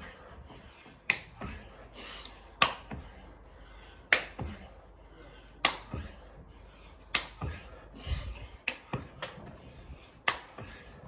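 Hand claps from clapping press-ups done on the knees: seven sharp claps about every second and a half, with fainter knocks between them.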